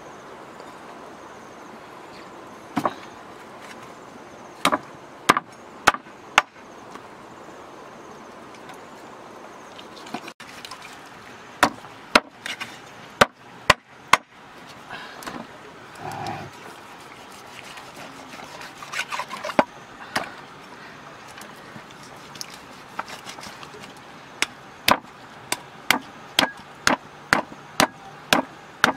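A large knife chopping through a raw chicken onto a wooden stump chopping block: sharp chops in scattered groups, then a quick, even run of about three chops a second near the end.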